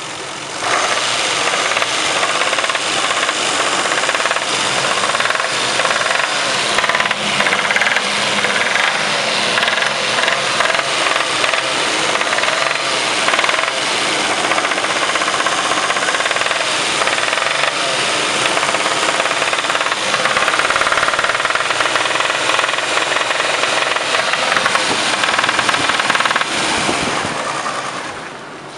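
Car engine running with a loud, rapid knock, heard close up. It sets in about a second in and drops away near the end.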